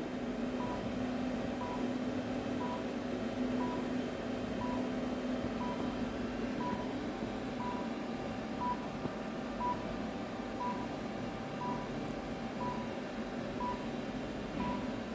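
High-power therapy laser unit beeping about once a second while it emits, over a steady hum.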